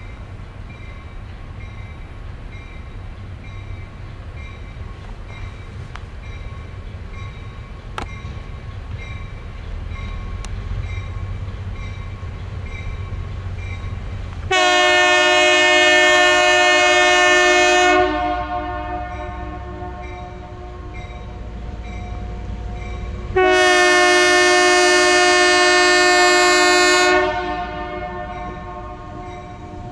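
A diesel freight locomotive's air horn sounds two long blasts, each about three and a half seconds, as a chord of several tones. Between the blasts the locomotives' diesel engines rumble low and steady. The locomotives are an EMD GP9 and SW1500 pair.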